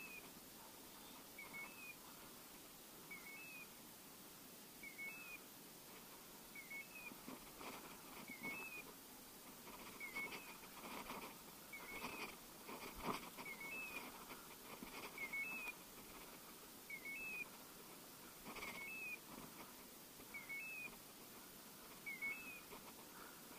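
Faint short electronic chirp repeating at a very even pace, a little under every two seconds, typical of a hunting dog's beeper collar tracking an English setter in cover. Rustling of footsteps through dry brush comes and goes in the middle.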